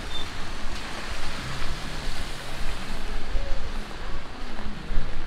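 Wet city street ambience: a steady hiss of rain and traffic on wet pavement over a low rumble.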